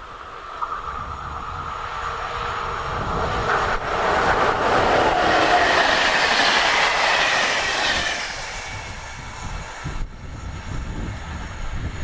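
Škoda class 163 electric locomotive hauling a passenger train past at speed: it approaches, grows loudest as the locomotive and coaches go by with wheel-on-rail noise, then fades. A high whine drops in pitch as the train passes.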